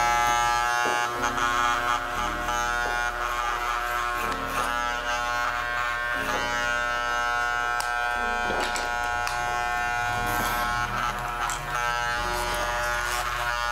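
Electric hair clippers running with a steady buzz as they cut a mannequin's hair. A few short sharp cracks are heard behind the buzz.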